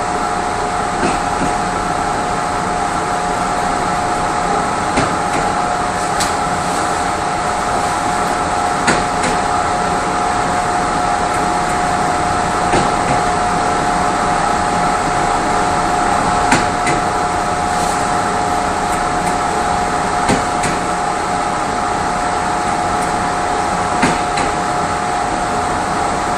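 Moving passenger train heard inside its rear coach: a steady running hum with a couple of steady tones, and a sharp click every few seconds from the wheels on the track.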